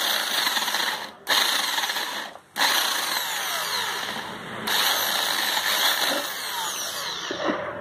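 Handheld electric drill spinning a coarse emery porting bit against the cast exhaust port of a Bajaj Discover 135 cylinder head, grinding the rough casting smooth. The drill stops briefly twice in the first few seconds, then runs on steadily.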